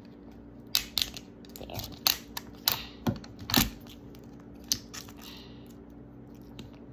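Crackling and clicking of a plastic Mini Brands capsule ball and its wrapper being picked and pried at, about ten sharp snaps in the first five seconds.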